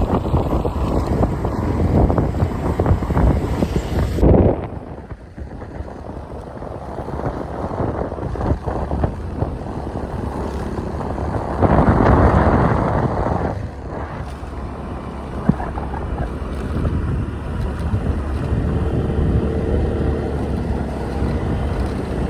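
Wind buffeting the microphone while riding a motor scooter, with road and engine noise underneath. The noise drops abruptly about four seconds in, and a louder gust comes about twelve seconds in.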